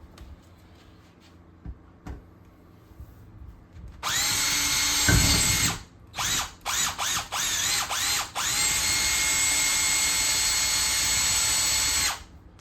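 20-volt cordless drill whining as it bores a hole through a foam-cored front door. It starts about four seconds in, comes in several short trigger bursts, then runs steadily until it stops shortly before the end.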